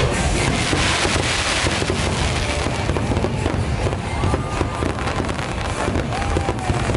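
Aerial fireworks going off in a dense barrage: rapid, overlapping bangs and crackling from many shells and comets bursting at once, with the show's music playing underneath.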